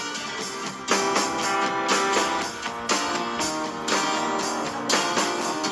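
Background music led by a strummed guitar, with a regular beat about once a second.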